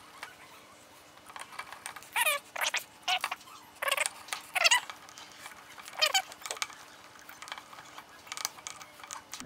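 A bolt squeaking in its threads as it is turned in with a hex driver: a series of short squeals, each falling in pitch, coming in quick runs over a few seconds.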